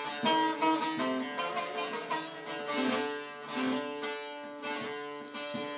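Bağlama (saz) playing an instrumental introduction of quick plucked notes, the lead-in before the singing of a Turkish folk song begins.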